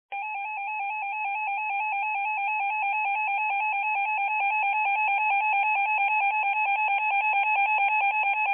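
Emergency alert attention tone: a loud electronic two-pitch signal warbling rapidly back and forth, starting abruptly and growing slightly louder as it goes.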